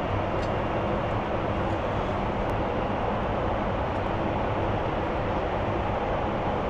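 Steady cabin noise of a Boeing 747-8 airliner in cruise flight: an even rush of air with a low hum beneath it.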